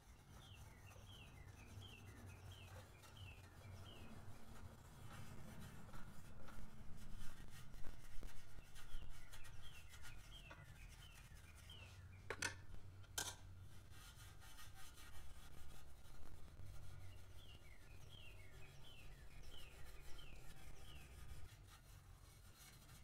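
A 0000 steel wool pad scrubbing a chrome Harley-Davidson exhaust pipe, a dry scratchy rubbing that swells and fades with the strokes as it takes off burned-on rain-pant residue. Birds chirp in runs of short falling notes, and two sharp clicks come a little past the middle.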